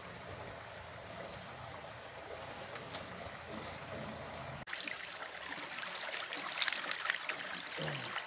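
Shallow mountain stream running over rocks, faint at first. After a sudden cut about halfway through, it turns into close, louder trickling and splashing as hands work a bag of caught fish in the water.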